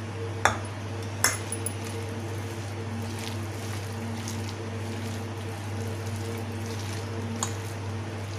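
Hand mixing a wet potato-onion and wheat-flour pakora batter in a steel bowl, a soft squishing of the batter, with two sharp clinks against the bowl in the first second or so. A steady low hum runs underneath.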